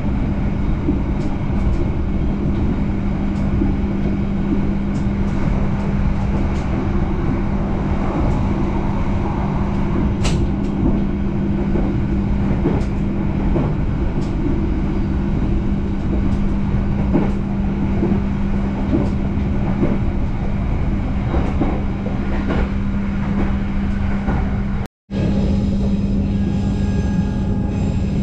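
Argo Bromo Anggrek passenger train running along the track, heard from inside the carriage: a steady rumble of wheels on rail with a constant low hum and scattered light clicks. The sound cuts out for a moment near the end.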